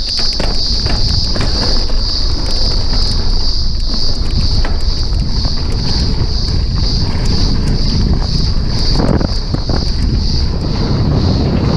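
Mountain bike rolling fast down a dry dirt trail: wind buffeting the microphone and tyres rumbling over the dirt, with frequent small knocks and rattles from the bike. A high, steady whine pulses about three times a second throughout.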